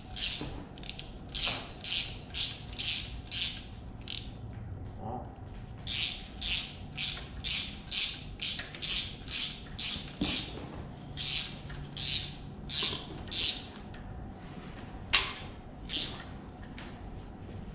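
Hand ratchet wrench clicking in steady back-and-forth strokes, about two a second, with a short pause partway through, as a stud is backed out of a Ford 302 V8. Near the end there are a few single clicks, one a sharper clack.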